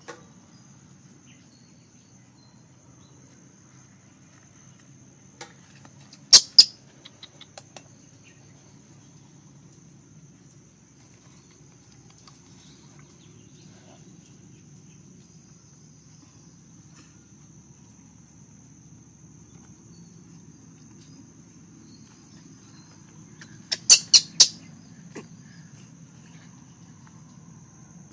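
Steady high-pitched drone of insects, with two short runs of sharp chirps, about six seconds in and again about twenty-four seconds in.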